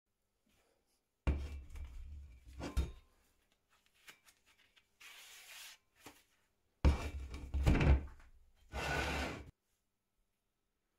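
Heavy clunks of a solid object being handled and set down, twice, each followed by a second knock and some rattle, with a short hiss after each.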